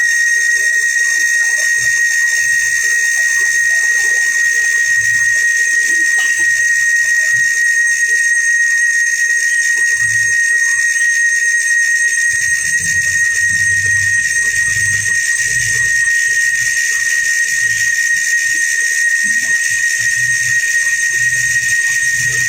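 A machine in a machining shop running steadily, with a loud, constant high-pitched whine.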